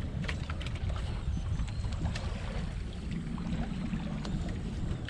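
Steady low rumble of a small outrigger fishing boat on the sea, with water lapping at the hull and occasional light knocks and clicks.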